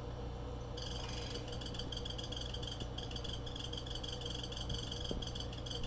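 Refrigerator chirping and squealing: a high-pitched, rapidly fluttering chirp starts about a second in over the fridge's steady running hum. The owner suspects the condenser fan motor, which still makes the noise after the fan was cleaned.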